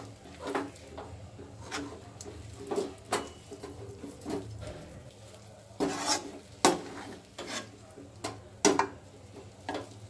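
Metal ladle scraping and knocking against a shallow aluminium pan as thick, cooked rice-flour dough is stirred and mashed, in irregular strokes with a few louder clanks.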